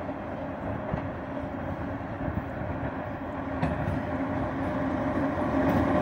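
2ES5K 'Ermak' electric locomotives hauling a heavy freight train up a mountain grade and approaching. A continuous rumble with a steady electric hum grows gradually louder as they near.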